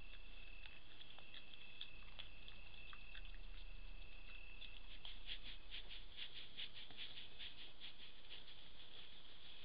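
Steady high trilling of night insects such as crickets or bush crickets. From about halfway through, a fast run of short ticks, about five a second, joins the trill, with scattered faint ticks and rustles before it.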